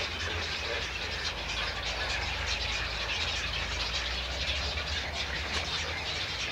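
A wading-bird nesting colony: a continuous din of many birds calling and chattering at once, over a steady low rumble.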